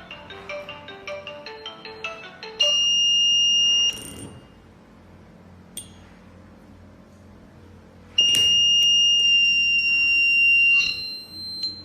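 Video door phone system sounding its electronic call chime, a quick melodic ringtone tune, which stops about two and a half seconds in. Then come two loud, steady, high electronic beeps, the first about a second long and the second, about eight seconds in, twice as long.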